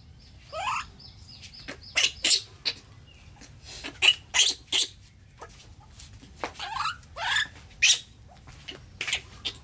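Repeated short, high-pitched squeaks from a young animal, with two longer whimpering calls that glide upward, about half a second in and again around seven seconds in.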